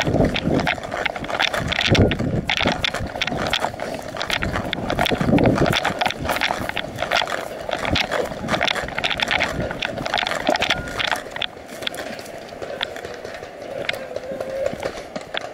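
Running footsteps of a paintball player on dry forest ground and grass, a dense, irregular run of thuds with gear and clothing rustling.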